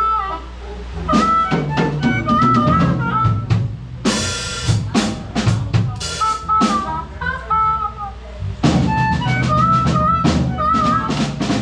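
Live blues band playing during a sound check: a drum kit with snare, bass drum and rimshots under short melodic phrases with bent notes, over a steady low bass. The playing eases briefly past the middle, then picks up again.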